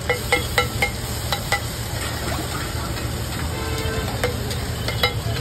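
Metal spatula and spoon clattering and scraping on a flat iron griddle as egg is chopped and mixed, a quick run of sharp taps in the first second and a half and a few more later, over the sizzle of egg frying on the hot griddle.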